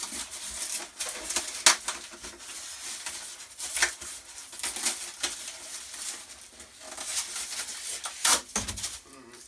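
Plastic packaging and parts being handled: irregular crinkling and rustling with a few sharp clicks and knocks.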